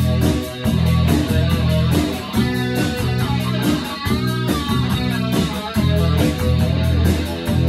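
Rock band playing: electric guitars over drums that keep a steady beat.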